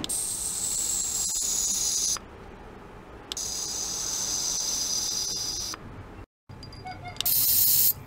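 Handheld ultrasonic probe running in a glass of water in three spells: a high hiss with thin steady high whines, about two seconds, then about two and a half seconds, then a shorter, louder spell near the end.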